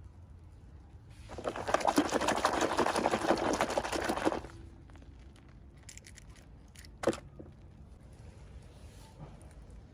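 Packaging being handled during an unboxing, crinkling and rustling for about three seconds, then a single sharp click a few seconds later.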